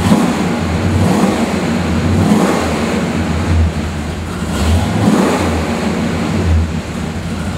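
1969 Dodge Super Bee's 440 Six Pack V8 (three two-barrel carburettors) running through its dual exhaust and being revved in a series of throttle blips, the rumble swelling and easing about once a second.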